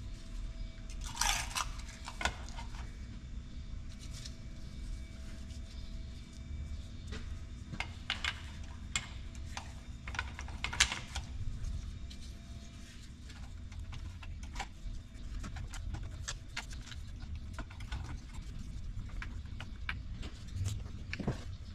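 Small steel valve-train parts clicking and clinking as they are handled and fitted into a Detroit 2-53 cast-iron cylinder head, in scattered light taps, over a low steady hum.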